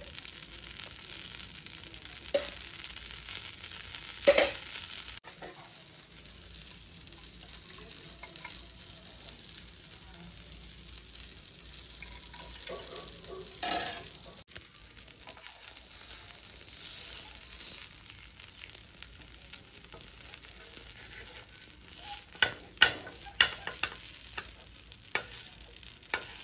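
Dosa batter sizzling on a hot tawa, a steady frying hiss with an occasional sharp knock. Near the end comes a run of quick scrapes and taps as a spatula works the dosa loose from the griddle.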